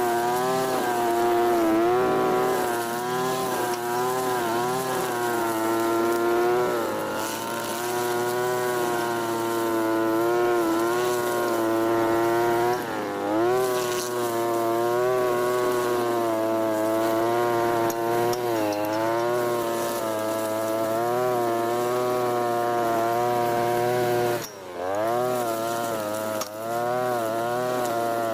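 Two-stroke engine of a Europa Hilt TB43 ceramic-block brush cutter running at high revs, its pitch wavering as the cutting head takes load. The revs dip briefly and recover about halfway, and drop sharply and rev back up near the end.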